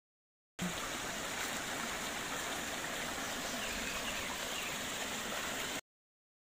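Shallow rocky creek running over and between stones: a steady rush of water. The sound drops out to dead silence for under a second at the start and again near the end.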